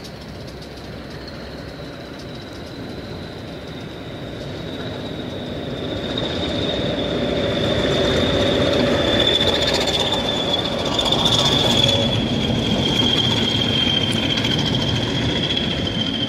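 Pair of British Rail Class 20 diesel locomotives hauling a freight train past, their English Electric V8 engines and rail noise building over the first several seconds and then staying loud. Over it runs a high, steady squeal that slowly falls in pitch.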